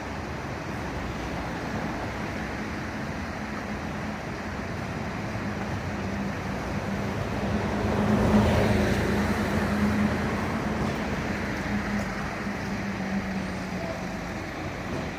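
Road traffic noise, with a vehicle's engine hum passing close, loudest about eight seconds in and then fading away.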